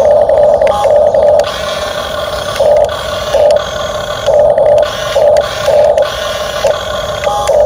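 Huina RC excavator's electric motors and gearing whirring in short repeated bursts, starting and stopping as the controls are worked.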